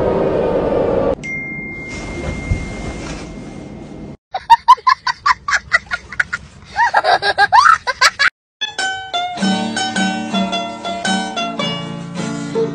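Edited meme soundtrack. A quieter stretch with a steady high tone gives way, about four seconds in, to a small boy laughing hard in rapid bursts for about four seconds. After a brief drop-out, instrumental music of short plucked notes starts.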